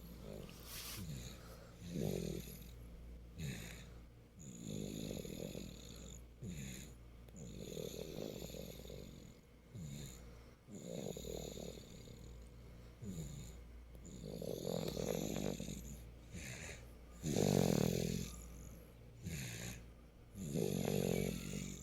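Loud snoring: a long snore about every three seconds, with shorter, quieter breath sounds between them; the loudest snore comes about three-quarters of the way through.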